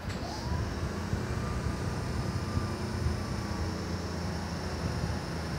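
Steady low rumble of an approaching Class 37 diesel locomotive, not yet in sight, with a faint whistle-like tone that rises briefly about a quarter of a second in.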